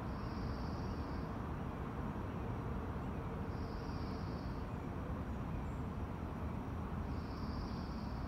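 Steady low outdoor rumble of distant traffic, with a high buzzing insect call that comes three times, each about a second long and roughly three and a half seconds apart.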